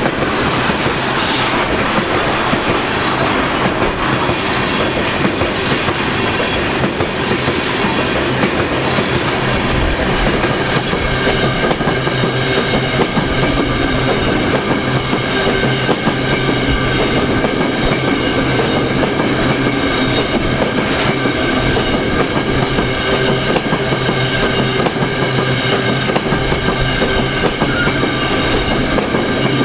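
CN freight train's cars rolling past in a steady loud clatter of wheels over the rails. From about twelve seconds in, a thin steady whine rides over the noise.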